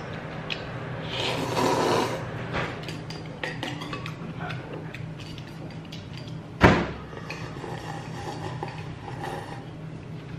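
Close-miked eating of noodle soup: slurping and chewing, with chopsticks and a wooden spoon clicking against a ceramic bowl, then broth drunk straight from the bowl. One loud knock comes about six and a half seconds in, over a steady low hum.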